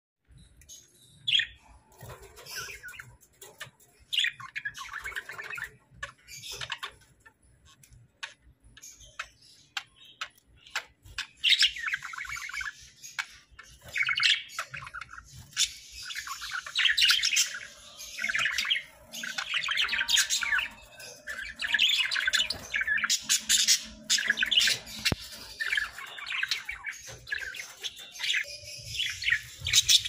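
A flock of budgerigars chattering and chirping. Short scattered chirps come at first, and from about a third of the way in they turn into a busy, near-continuous warbling chatter of many birds.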